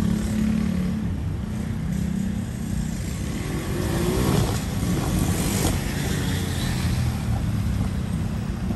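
City street traffic: cars driving past at an intersection over a steady low rumble, with one passing louder about four to five seconds in.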